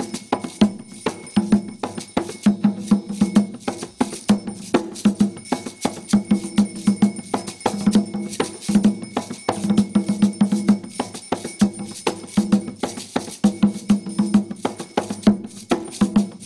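Afro-Brazilian ritual hand drums (atabaques) playing a fast, continuous rhythm of pitched strokes, with sharp clicking strikes over it.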